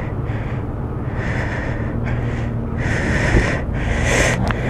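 A rider's heavy, ragged breaths and gasps inside his helmet, several in a row, close to the microphone, as he lies winded on his stomach after a motorcycle crash. A steady low engine hum runs underneath.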